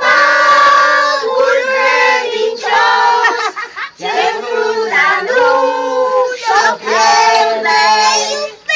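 Voices singing a Romanian Christmas carol (colind) together, in short phrases of held notes with a brief break about four seconds in.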